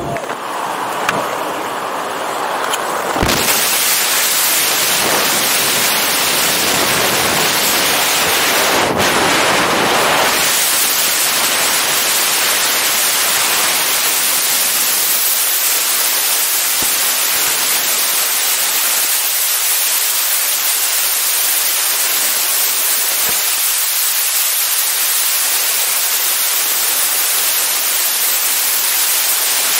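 Freefall wind rushing over the camera microphone, loud and steady. It swells sharply about three seconds in as the skydivers leave the aircraft door; before that there is a quieter, duller cabin-and-door rush.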